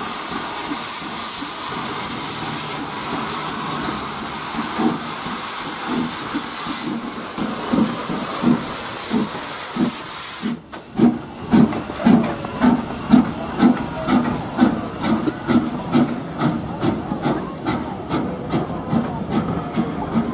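Steam locomotive hissing steam steadily. About halfway through the hiss cuts off suddenly and a train's rhythmic running beat, about two a second, takes over.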